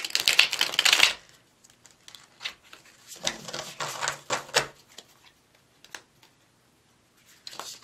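Thin tarot cards backed with clear plastic contact paper being riffle-shuffled: a really loud, fast rattle of flicking card edges in the first second. A softer run of card clicks and taps follows from about three seconds in as the deck is handled again.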